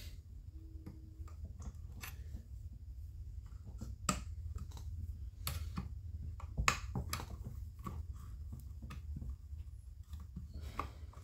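Flathead screwdriver working an anti-vibration mount bolt out of a top-handle chainsaw: scattered sharp clicks and taps of metal on the saw, the loudest about four, five and a half and seven seconds in, over a steady low hum.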